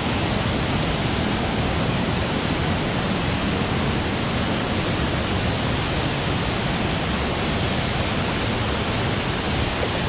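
A small waterfall in two cascades pouring over rock ledges into a pool, making a steady, even rush of falling water.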